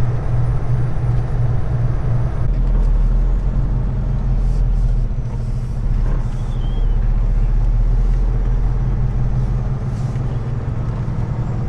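Kenworth T680 semi truck's diesel engine running steadily at low speed, heard from inside the cab. The lowest part of its drone deepens about two and a half seconds in.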